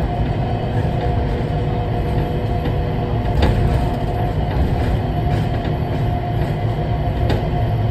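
Changi Airport Skytrain, a rubber-tyred automated people mover, running steadily along its guideway, heard from inside the car. A constant low rumble carries a faint steady motor whine, with a couple of clicks from the running gear.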